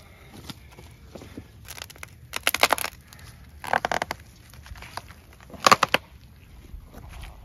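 A wooden pole jabbing and levering through charcoal and charred debris in soil, giving a few short crunching, crackling bursts.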